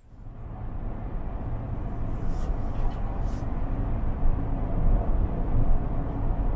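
Steady road noise inside a car's cabin at highway speed, a deep tyre and engine drone that fades up in the first second.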